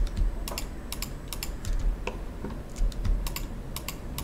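Computer keyboard clicking: about a dozen sharp, irregularly spaced key clicks.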